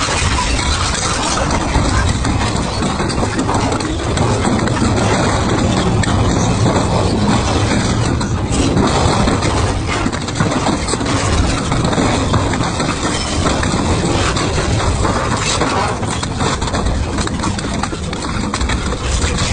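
Double-shaft scrap shredder's toothed cutter shafts biting into and tearing thick rusty steel plate: a loud, steady machine drone with constant crunching and cracking of metal.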